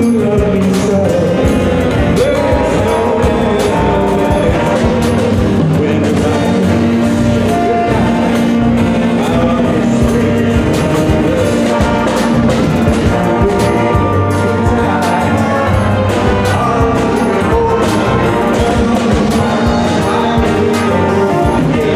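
A big band of saxophones, trumpets and trombones playing live, with drums keeping a steady beat.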